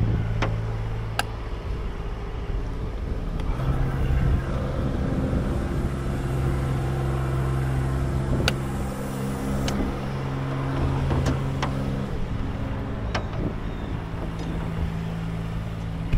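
Spider lift's engine running steadily, speeding up about three and a half seconds in and dropping back to idle near the end, with a few sharp clicks over it.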